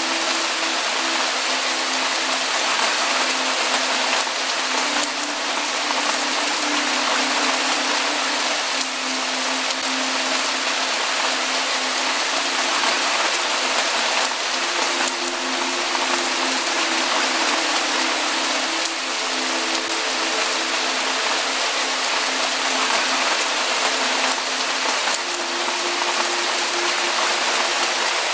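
Steady rainfall: a dense, even hiss of rain with no single drops, gusts or thunder standing out.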